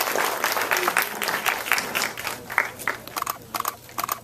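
Cinema audience applauding, the clapping thinning and dying away into scattered single claps toward the end.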